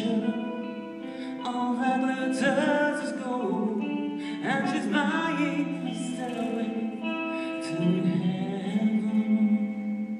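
A live rock band playing a song: a lead vocal over electric guitars and a drum kit, heard from the audience in a hall.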